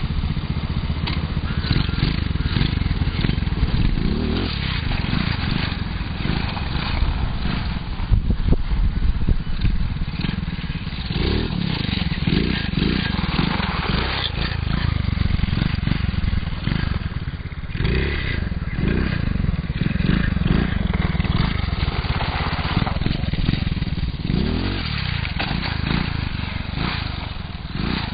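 The 110cc single-cylinder engine of a quarter-scale RC truck running and revving up and down again and again as it drives.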